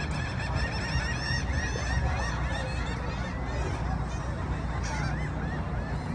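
A flock of birds calling together: many short, repeated, rising-and-falling calls overlapping in a busy chatter, over a steady low rumble.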